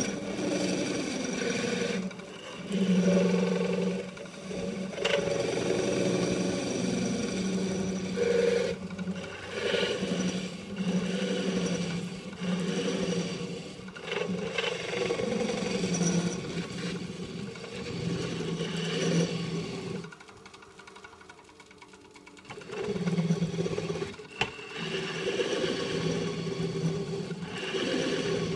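Nova Comet II wood lathe running while a turning tool cuts into the end grain of a spinning wooden shovel-handle blank, hollowing a concave cup in the bat's end. A steady motor hum with uneven scraping as the tool bites and eases off. The sound drops away briefly about twenty seconds in.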